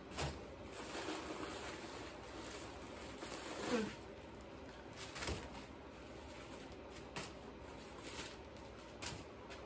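Faint rustling and crinkling of crumpled white stuffing paper being pulled out of a bucket bag, with a few light taps. A short murmur of a voice a little before four seconds in is the loudest moment.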